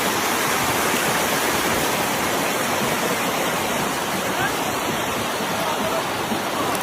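Steady, loud rush of running water, an even noise without breaks.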